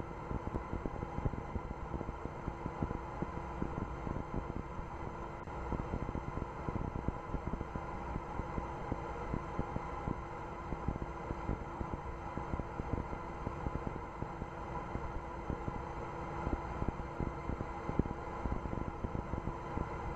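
Steady rumbling hiss with dense crackle and a few faint steady hum tones, heard on a rocket launch's live audio feed during the second-stage engine burn.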